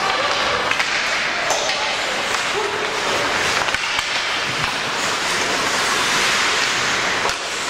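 Steady crowd noise echoing in a large indoor hall, with a few short indistinct shouts.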